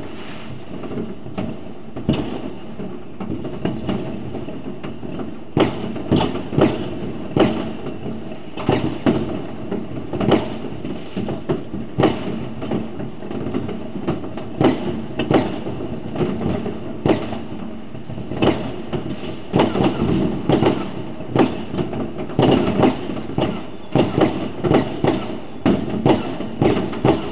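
New Year's Eve fireworks going off all over a town: a steady rumble of distant bangs and crackling, with louder single bangs about once or twice a second from about five seconds in.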